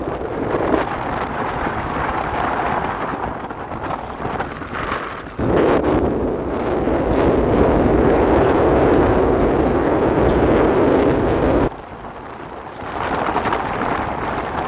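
Vehicle travelling on a rough dirt road: a steady rumble of road and wind noise on the microphone. It grows much louder and coarser about five and a half seconds in and drops back abruptly near twelve seconds.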